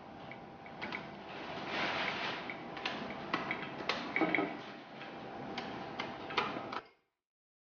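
A steamed lotus-leaf parcel being snipped open with scissors and unfolded by hand: the stiff leaf rustles and crackles, with a scattering of sharp clicks. The sound cuts off suddenly near the end.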